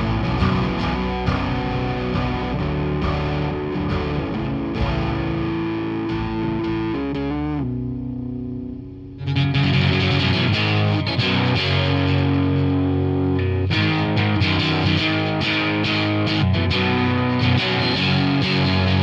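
Rock music led by a distorted electric guitar. It thins out and dips about eight seconds in, then comes back fuller and louder about a second later.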